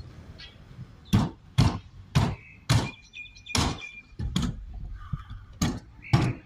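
Stunt scooter riding a mini ramp: the wheels and deck land and knock on the ramp in a series of sharp thunks, about eight in six seconds.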